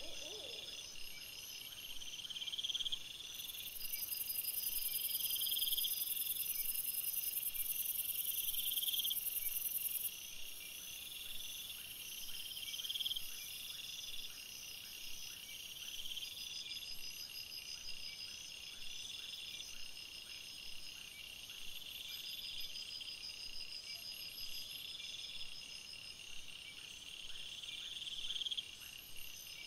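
Insects chirping, a steady repeating pattern of short high trills and pulses, with a higher continuous buzz from about 3 to 10 seconds in.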